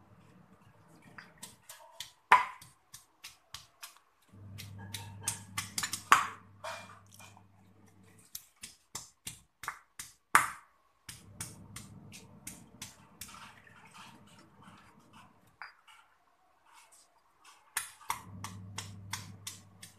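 Stone pestle pounding in a granite mortar: a run of sharp, uneven knocks of stone on stone as raw garlic, shallot, ginger and lemongrass are crushed, with a couple of short pauses between bouts.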